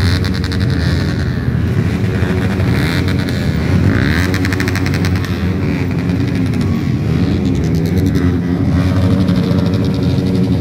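Several motorcycle engines running together, their pitch rising and falling as the bikes rev and ride past at low speed.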